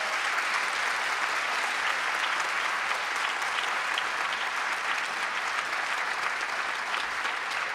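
Lecture audience applauding steadily, a dense sustained clapping.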